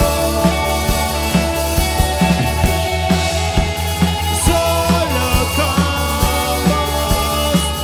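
Rock band playing live: drum kit with a regular kick about twice a second, bass, and keyboards, with a male voice singing.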